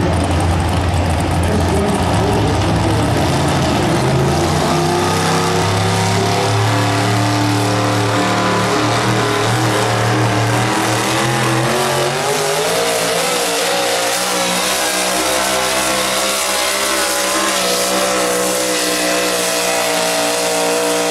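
Ford pulling truck's engine at full throttle, dragging a weight-transfer sled down the pulling track. The engine note climbs steadily for several seconds, then holds high.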